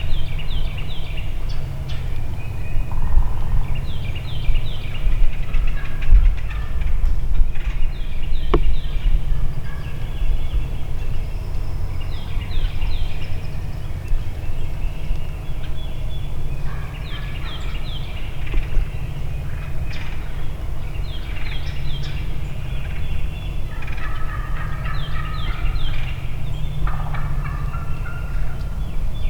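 Wild turkey gobblers gobbling over and over, several rattling gobbles every few seconds, some overlapping as more than one bird answers. A steady low rumble runs underneath.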